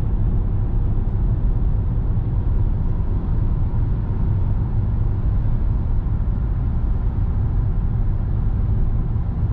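Steady low rumble of a car driving along, engine and tyre noise.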